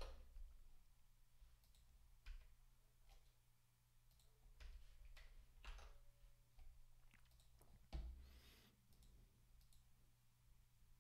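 Near silence: a steady low hum with faint clicks at a computer desk, scattered every second or so and never forming a typing run.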